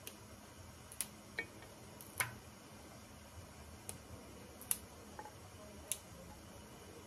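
Crisp snaps of fresh green vegetable stems being broken off by hand, about six sharp clicks at irregular intervals a second or so apart.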